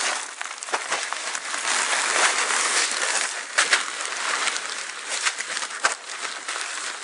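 Plastic moisture-barrier sheeting crinkling and rustling continuously as a person crawls over it hauling a bag of gravel, with a few sharper crackles.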